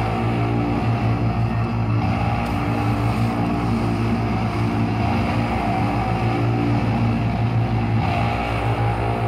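Background music for the dance: a steady low sustained drone with no clear beat.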